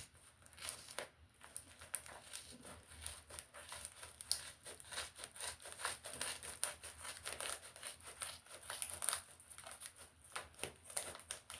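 Plastic shrink-wrap on a DVD case crinkling and tearing as it is cut and worked open with scissors: a steady run of irregular crackles and rustles.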